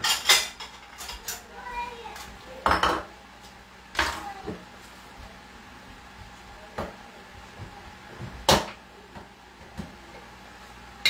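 Kitchen clatter of dishes and utensils being set down and handled at the counter and sink: several sharp clacks a few seconds apart.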